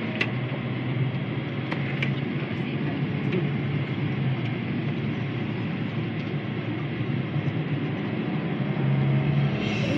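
Four-wheel-drive SUV driving over sand dunes, heard from inside the cabin: steady engine hum and driving noise, with a few sharp knocks or rattles in the first two seconds.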